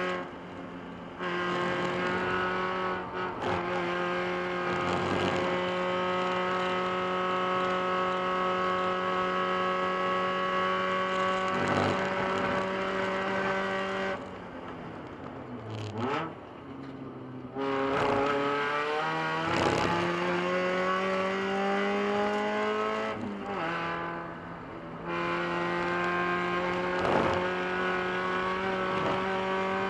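Spec Miata race car's four-cylinder engine running hard at full throttle. About halfway through the note drops and falls in pitch under braking, with quick throttle blips of heel-toe downshifts, then climbs steadily again under acceleration. A few seconds later comes a second brief lift before it settles back to full throttle.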